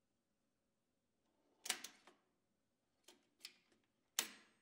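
Siemens Sentron circuit breaker handle and its operating mechanism on a tiastar motor control center unit, worked by hand and giving off sharp mechanical clicks: a quick double click a little after a second and a half in, two light ticks, and a louder click near the end.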